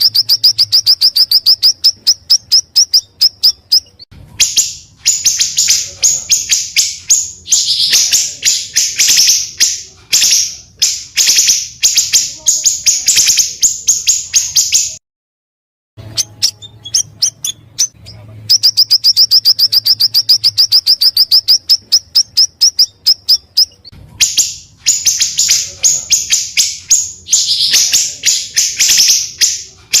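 Small songbirds calling: a fast, high trill of evenly repeated notes lasting about four seconds, then rapid harsh chattering bursts, with the sequence repeating after a one-second break about halfway through.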